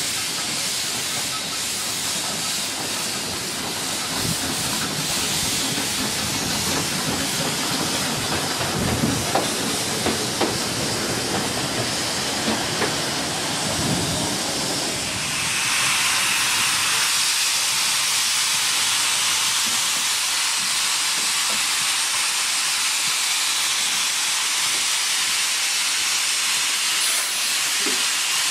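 Miniature steam locomotive letting off steam: a loud continuous hiss, with some low rumble and a few knocks in the first half, becoming a steadier, higher hiss from about halfway through.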